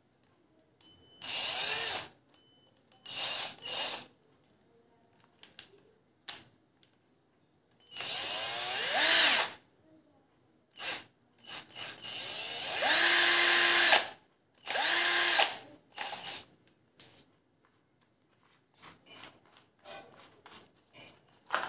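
Electro Power 12 V cordless drill/driver motor run in about six or seven short trigger bursts. Its whine rises as it spins up, and on the two longer runs, near the middle, it holds a steady pitch for a second or two. Small clicks sound between the runs.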